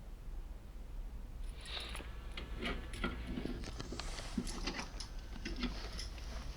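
Light, irregular metallic clicks and short scrapes of a foil impressioning lock tool being inserted and worked in an Iseo R7 cylinder lock, starting about a second and a half in.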